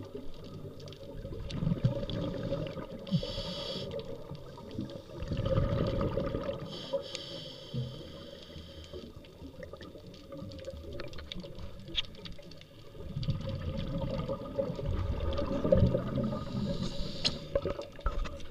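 Scuba regulator breathing heard underwater: a short hiss on each inhale and a low rumble of exhaled bubbles, repeating over several slow breaths.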